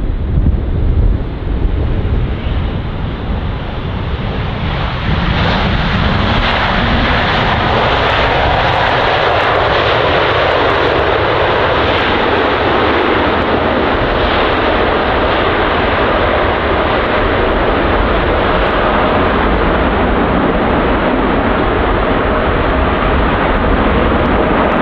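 Boeing 747 freighter's jet engines during landing. About five seconds in the sound steps up to a loud, steady rush that holds through the rollout, consistent with reverse thrust applied after touchdown.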